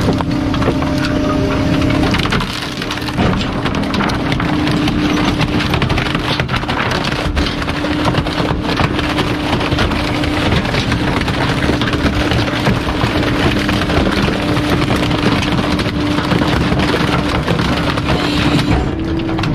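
Rear-loader garbage truck's hydraulic packer blade sweeping and compacting household junk in the hopper: a dense crackle and crunch of breaking debris over a steady hydraulic whine. Near the end the whine starts to drop in pitch.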